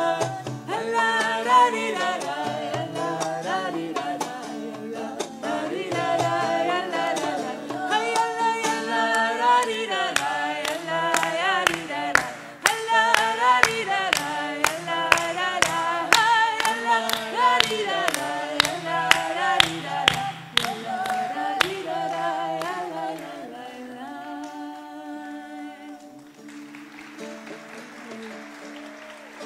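A small group singing a wordless Jewish nigun melody together. Through the middle they clap hands in time, about two claps a second. Near the end the singing thins out and quietens over a ukulele.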